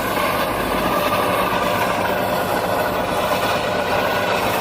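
Heavy diesel engine idling steadily, with an even mechanical noise over its low hum.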